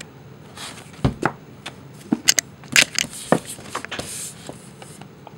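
Paperback books being handled on a small stack: a few light knocks as books are set down and picked up, the loudest about a second in, with a soft rustle of covers.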